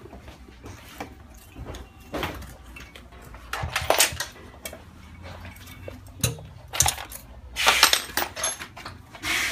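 Irregular metallic clinks, taps and scrapes of a hand tool and loose parts against the metal frame and fittings of a laminating machine that is being taken apart. The loudest knocks come about four seconds in and again near eight seconds.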